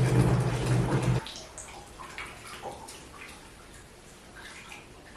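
Water running hard from a tap, shut off abruptly about a second in, followed by faint small clicks and knocks.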